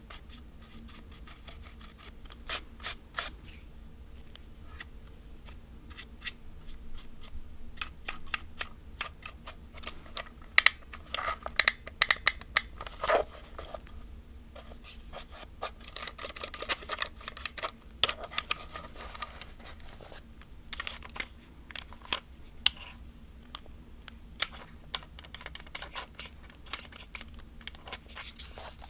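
Dry brush bristles sweeping over a plastic film camera body, mixed with sharp little clicks and ticks of plastic being handled. A burst of louder, denser clicks comes about ten to thirteen seconds in.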